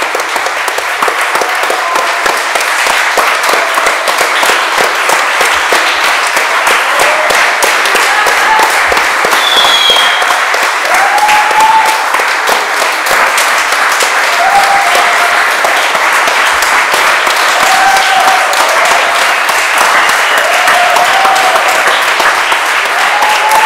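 Audience applause, dense and steady throughout, with a few short voices calling out above it and a brief high whistle-like call about ten seconds in.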